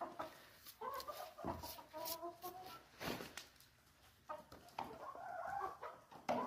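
Domestic hens clucking softly in two short spells, with a few sharp taps in between.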